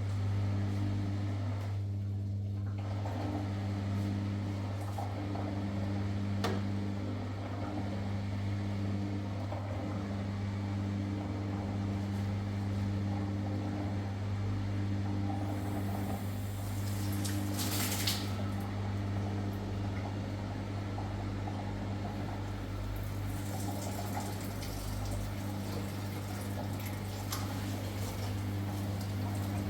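Steady low machine hum, with water running and splashing over it and a few light clicks.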